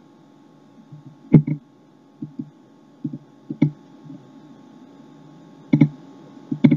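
A few sharp clicks and small low knocks, scattered through a pause, over a faint steady electrical hum.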